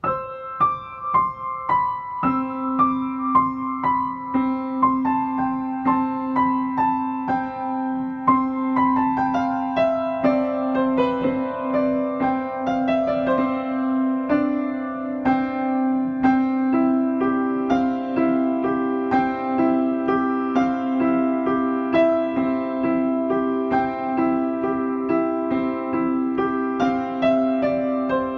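Piano music, a melody of many short notes that starts abruptly, over a long held low note that comes in about two seconds in.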